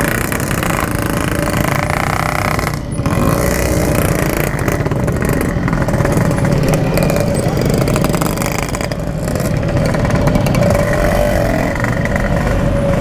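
Yamaha RX-King 135cc two-stroke single-cylinder engine running steadily at low revs, with a brief dip in level about three seconds in.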